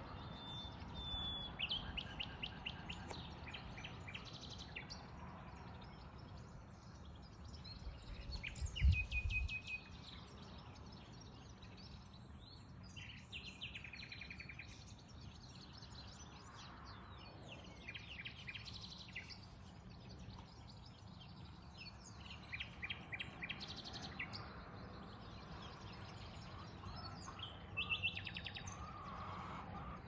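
Several wild songbirds singing and calling, in short bursts of rapid repeated high notes and trills every few seconds, over a steady outdoor background hiss. A low thump about nine seconds in.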